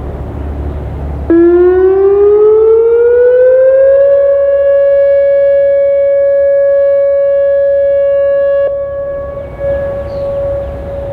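Whelen WPS-2904 electronic outdoor warning siren sounding a short alert tone during a test. The tone starts abruptly about a second in, rises in pitch for about three seconds, then holds steady. It cuts off near the end and leaves a fading echo.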